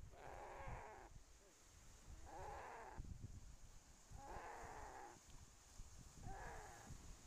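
A Timor deer bleating in distress while Komodo dragons bite into it. There are four calls, each under a second long, about two seconds apart.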